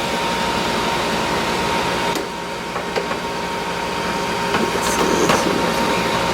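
Breville Smart Oven Air's convection fan running steadily in air fry mode, a whooshing hum with a thin steady whine, and a few light clicks in the middle.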